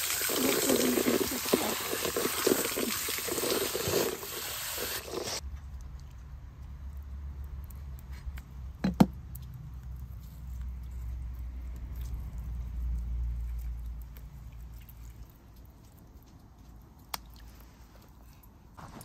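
Water pouring and splattering over a chicken carcass as it is rinsed, cutting off about five seconds in. After that, quieter handling of the meat with a low steady rumble and a sharp click about nine seconds in.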